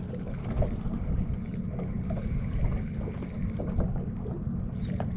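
Wind buffeting the microphone: a steady low rumble with faint scattered ticks.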